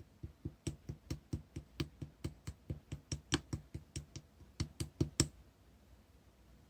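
Light-green slime being pressed and squished by hand, making a quick, even run of sharp clicking pops, about four a second, that stops a little after five seconds in.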